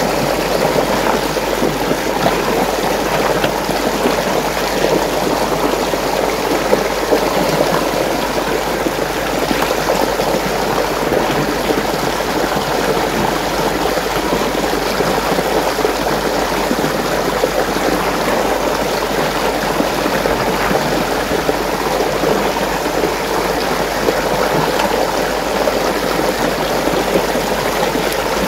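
Steady rush of running water, swirling and churning without a break.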